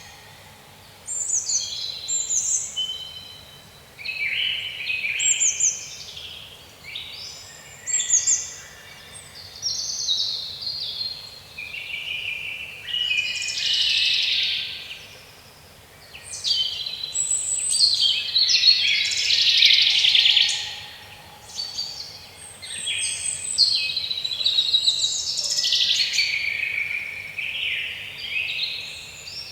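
Songbirds singing: a busy run of short, varied high chirps and trills, one phrase after another with brief pauses.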